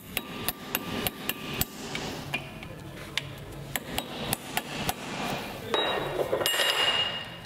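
Hammer blows knocking on a Hyundai Solaris front brake disc to free it from the hub, about two sharp metallic strikes a second. They are followed by about a second and a half of louder, harsher rattling noise with a high whine, which stops shortly before the end.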